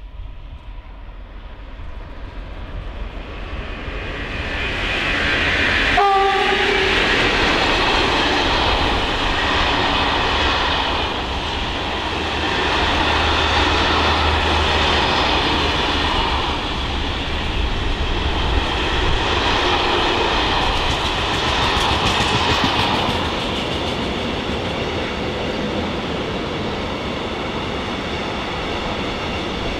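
Electric freight train approaching and passing close by, growing louder over the first few seconds. About six seconds in there is a brief horn toot. Then a long rake of covered wagons and steel-coil wagons rolls past with a steady rumble and wheel clatter.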